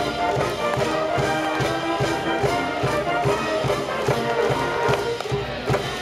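School brass band playing a march-like piece, with horns holding notes over drums that keep a steady beat.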